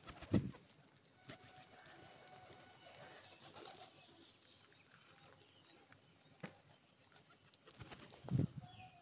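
A flock of feral rock pigeons cooing softly, with loud wing flaps from birds taking off close by just after the start and again near the end.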